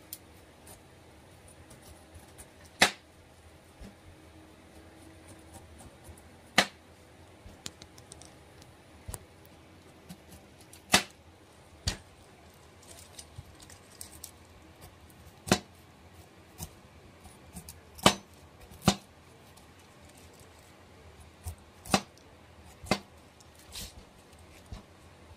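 Chef's knife slicing the rind off a whole pineapple in downward strips. Each cut ends in a sharp knock of the blade on the cutting board, one every few seconds at an uneven pace.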